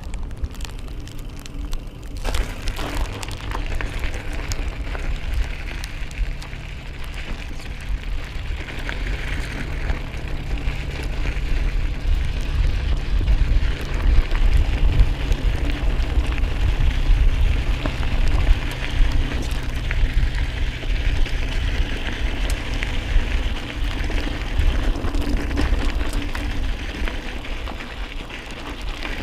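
Mountain bike riding along a dirt and gravel trail: the tyres crunch over the ground and the bike rattles and clicks over small bumps, under steady low wind rumble on the microphone.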